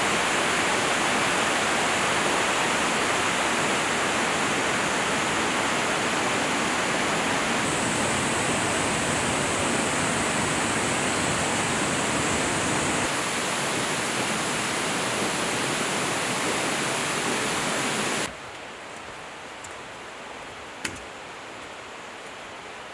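Steady rushing of running water from a mountain stream. It drops suddenly to a much quieter hiss about three quarters of the way through, and there is a single short click near the end.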